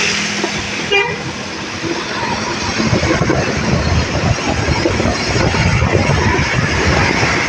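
Road traffic noise: vehicles running on the road with a steady rush of wind and tyre noise. A short horn toot comes about a second in.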